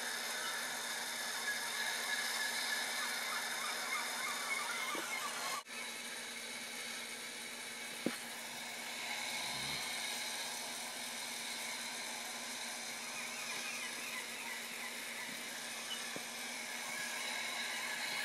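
Small electric motor of a Lionel toy-train layout whirring steadily, with a brief break about six seconds in and a single click a couple of seconds later.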